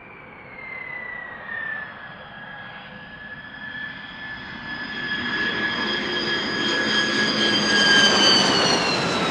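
B-2 Spirit's four General Electric F118 turbofan engines whining as the bomber lands, growing steadily louder to a peak near the end. Several whining tones sit over the rush of the exhaust. One tone glides down early on, and the higher tones fall slightly in pitch near the end as the aircraft passes.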